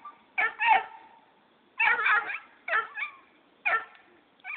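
Black and tan coonhound puppy barking in short bursts at its departing owner: about six high, pitch-bending barks, with a longer drawn-out one about two seconds in.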